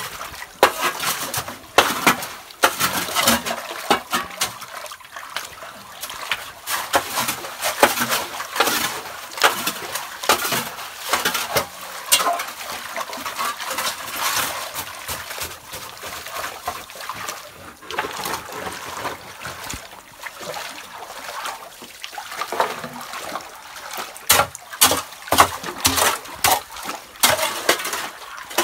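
Hands splashing and scooping through shallow muddy water, with irregular splashes and sloshes that come thicker near the end.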